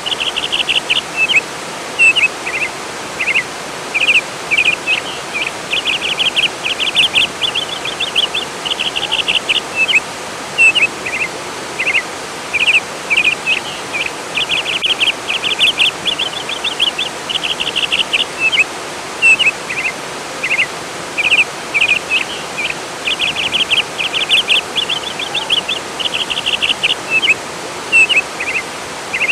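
Steady rush of flowing water with songbirds singing over it: fast trilled phrases and short chirps, repeating every second or two.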